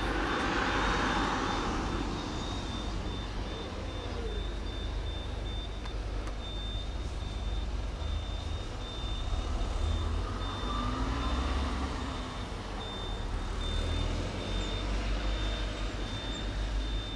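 Low rumble of a motor vehicle on the street, with a high-pitched beep repeating on and off throughout.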